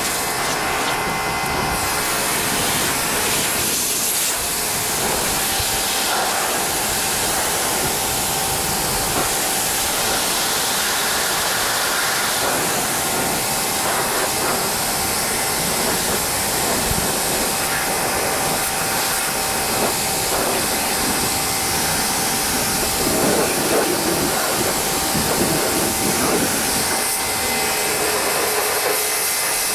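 Pressure washer spraying water onto a tractor's bodywork: a steady hiss of spray over the even whine of the washer's motor and pump.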